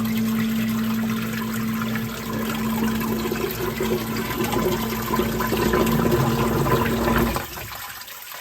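Submersible sump pump running with a steady motor hum while it pumps water out of the pit, the water churning and gurgling louder as the level drops. The motor cuts off abruptly about seven seconds in, leaving a faint trickle.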